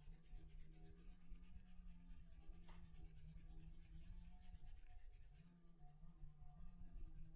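Near silence: faint rubbing of hands over skin and hair during a massage, over a steady low hum.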